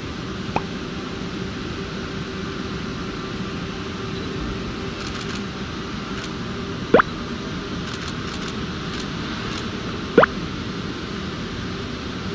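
Three short, rising cartoon 'pop' sound effects, edited in: one just after the start, one about seven seconds in and one about ten seconds in, over a steady hiss with a low hum.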